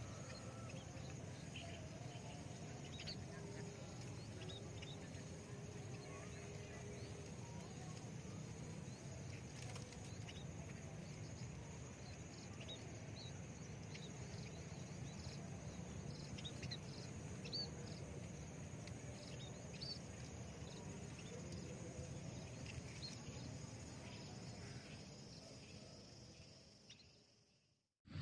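Rural outdoor ambience: scattered short, high chirps from small birds over a steady high insect hum and low background noise. It fades out near the end.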